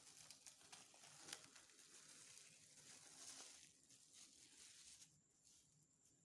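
Plastic cling film crinkling and crackling as it is peeled off a bowl and crumpled in the hand, with a few sharp crackles; it dies away about five seconds in.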